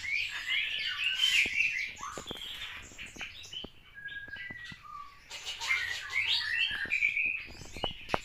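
A live rat squeaking in distress while held in a cat's jaws: two bouts of high, jittery squeaks, the first at the start and the second about five and a half seconds in, with light clicks between them.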